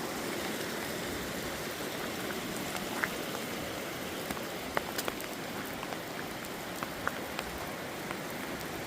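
Steady rain hissing, with single drops tapping sharply here and there, about a dozen separate ticks.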